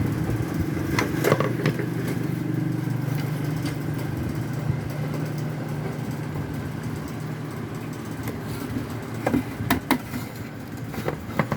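Motorcycle engine idling steadily, with a few sharp clicks of parts being handled about a second in and again near the end.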